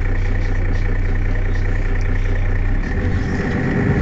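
Mercedes-Benz Citaro city bus engine idling steadily with a low hum; about three seconds in its note shifts and it grows louder.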